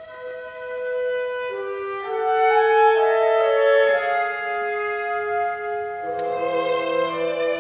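Wind and brass ensemble playing long held notes that enter one after another and stack into a sustained chord, getting louder about two seconds in, with a lower note joining near the end.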